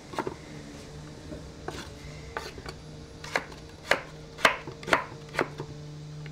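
Chef's knife chopping raw potato into small cubes on a wooden cutting board: sharp knocks of the blade on the board, sparse at first, then about two a second in the second half. A steady low hum runs underneath.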